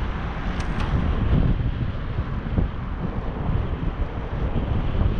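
Wind buffeting the microphone of a camera riding along on a moving bicycle: a continuous rushing rumble, heaviest in the low end.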